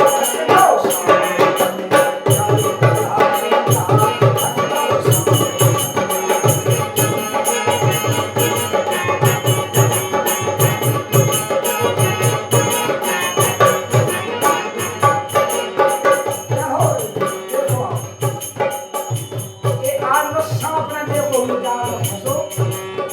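Instrumental break in a Bundeli dhimaryai folk song: a hand drum beats a steady rhythm under continuous jingling percussion and a melody instrument.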